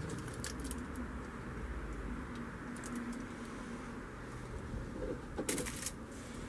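Light clicks and a short crinkle from a plastic icing piping bag and kitchen foil being handled, loudest about five and a half seconds in. Faint low cooing tones sound in the background.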